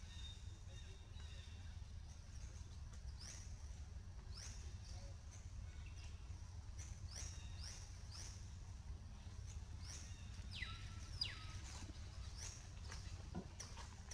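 Faint, short, high-pitched animal chirps, each sliding down in pitch, repeating about once a second. About ten seconds in comes one longer call falling in pitch. A low steady rumble runs underneath.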